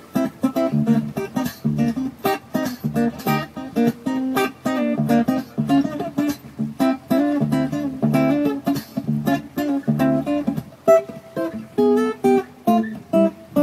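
Music: an instrumental break in a pop song, led by strummed acoustic guitar, with no singing.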